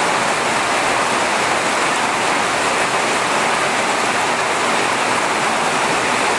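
Rainwater from a metal downspout pouring into the screened inlet of a full holding tank, a steady splashing rush of water. The tank is full and running over.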